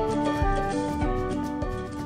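Intro music with held pitched notes over a steady beat, fading out.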